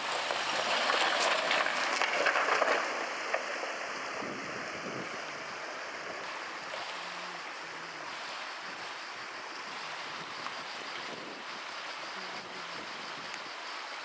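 Steady rushing of a mountain stream, louder over the first three seconds, with a pickup truck's engine running low underneath as it crawls over the rocks of the creek bed.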